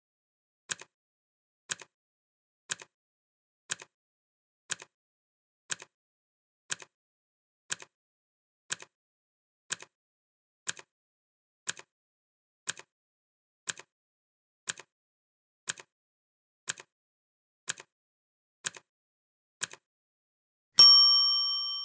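Clock ticking once a second, each tick a sharp click followed closely by a fainter one, for about twenty seconds. Near the end a loud bell ding rings out and fades slowly, the timer's finish signal.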